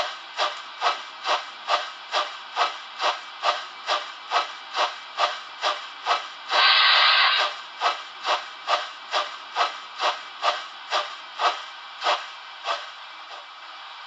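Digital steam sound from the DCC decoder of a Trix class 01 locomotive model: even exhaust chuffs at about two a second, with one loud burst of steam hiss lasting under a second about halfway through. The chuffs fade out near the end, leaving only a faint hiss.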